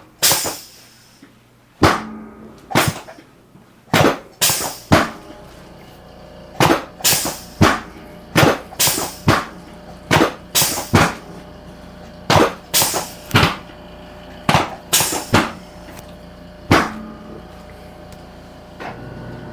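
About two dozen sharp knocks and cracks from a chiropractic adjustment of the lower back, coming in an uneven rhythm, often in pairs, then stopping near the end.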